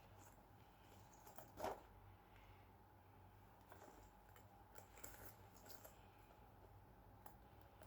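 Faint handling noises of a newly unboxed bag: soft clicks and rustles, with one louder brief rustle about a second and a half in.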